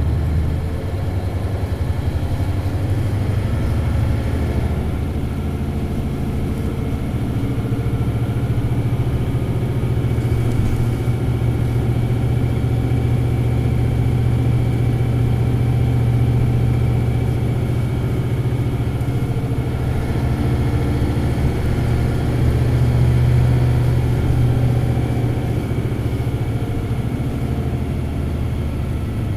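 Isuzu 8PE1-S V8 diesel engine of an Isuzu Cubic KC-LV280L city bus running under way, heard from inside the cabin: a continuous engine drone holding a fairly steady pitch, swelling slightly in loudness about three-quarters of the way through.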